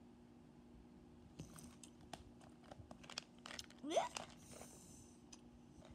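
Gum packet being handled and torn open: a run of small clicks, crinkles and tearing rustles, with a brief rising squeak about four seconds in.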